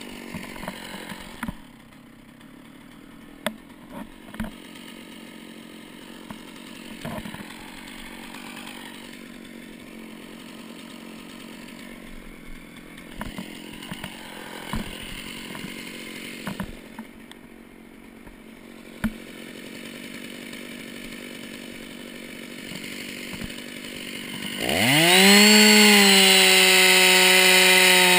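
Two-stroke chainsaw revving quickly up to full throttle about three seconds before the end, then running steadily at high speed with its pitch sagging slightly as the bar cuts into the base of a standing pine. Before that, a long quieter stretch with scattered knocks and crunches.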